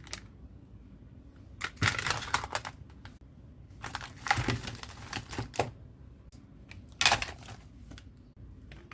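Small hard phone parts being handled, clicking and clattering against each other in three bursts: about two seconds in, again around four to five and a half seconds, and briefly near seven seconds.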